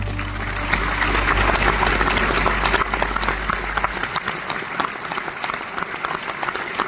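Audience applauding at the end of a song, dense at first and thinning to more separate claps. Under it the last low chord of the accompaniment dies away about four seconds in.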